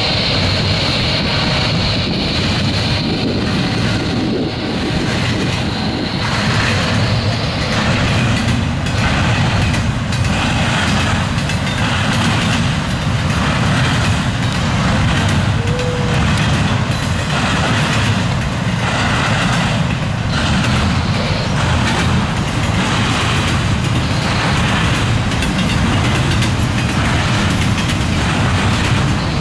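Freight train passing close by: a loud, steady rolling roar of railcars, with a regular clack about once a second as the cars go by. A humming tone fades out over the first few seconds.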